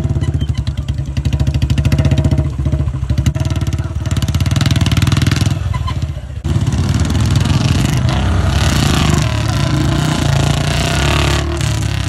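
Royal Enfield Bullet motorcycle running under throttle with a fast, pulsing exhaust beat while it is ridden across soft, ploughed ground. The sound drops out briefly about six seconds in and comes straight back, rougher and hissier.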